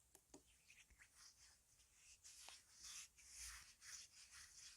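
Faint ASMR ear massage: soft rubbing and scratching strokes on the microphone's ears, growing louder about two seconds in.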